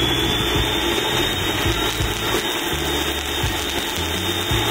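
Two VEVOR cold spark machines firing fountains of sparks: a steady, loud hiss with a steady high whine, and music with a bass line underneath.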